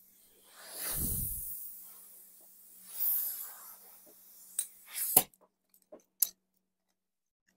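Compressed air hissing from an air blow gun in two short blasts, about a second in and again around three seconds, as it pressurises a hit-and-miss engine's fuel tank through the fill tube to force fuel through. A few sharp metal clicks and knocks follow, then the sound cuts off suddenly.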